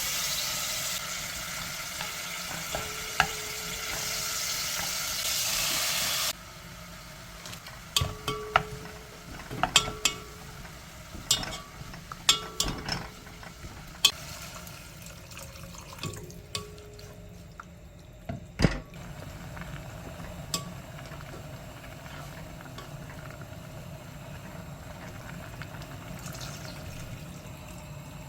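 Kitchen cooking sounds: a steady sizzle of food frying in a pan that cuts off suddenly about six seconds in, followed by a run of sharp, ringing clinks of a utensil against pots and dishes.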